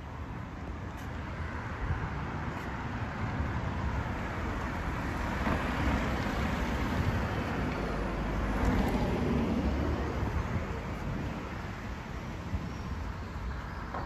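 Road traffic: a passing vehicle's tyre and engine noise swells over several seconds and fades again.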